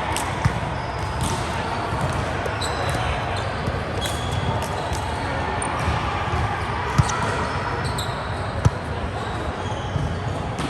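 Volleyball rally: the ball is struck with three sharp smacks, about half a second, seven and nearly nine seconds in, over steady players' voices and short high squeaks.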